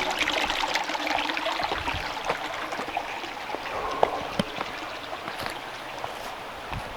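Small stream of water trickling and splashing, fading steadily over several seconds, with a few light clicks about four seconds in.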